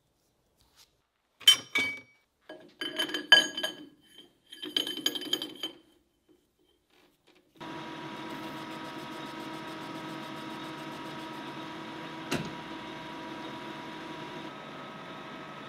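A few metal parts clinked and knocked together for the first six seconds. Then, about seven and a half seconds in, a metal lathe starts running steadily as it turns a brass bush, with one sharp tick partway through.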